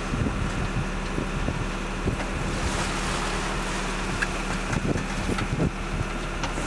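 Wind buffeting the microphone on a boat's deck at sea, over the boat's engine running with a steady low hum and the wash of waves.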